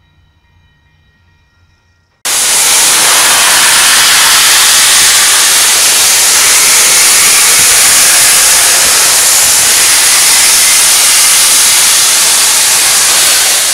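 Union Pacific Big Boy 4014 steam locomotive venting steam: a loud, steady hiss that starts suddenly about two seconds in.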